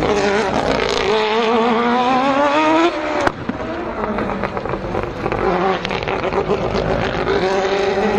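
Mazda 787B race car's four-rotor R26B rotary engine accelerating hard, its pitch climbing steeply. It drops back about three seconds in and runs lower and uneven, then starts climbing again near the end.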